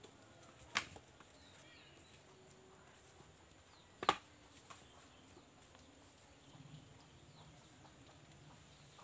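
Quiet outdoor background with faint, short bird chirps and a thin steady high tone, broken by two sharp knocks, one a little under a second in and the louder one about four seconds in.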